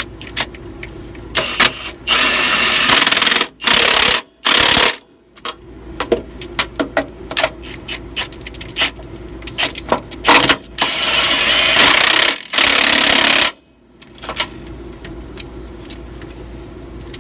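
Impact wrench run in several bursts of one to two seconds, tightening a 1-1/16 inch nut down onto a suspension airbag's stud, with tool clicks and knocks in between.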